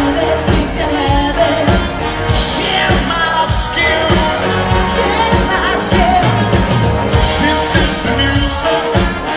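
Live band playing a pop-rock song, a singer's voice over drums and bass.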